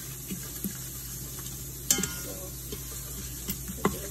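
Cumin (jeera) seeds, ground cumin and turmeric (saffron powder) sizzling faintly in oil in the stainless inner pot of an Instant Pot as a spoon stirs them. The spoon knocks sharply against the pot twice, about two seconds apart.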